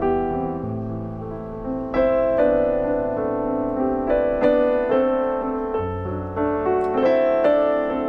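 Background piano music: a slow melody of struck notes over chords and held bass notes.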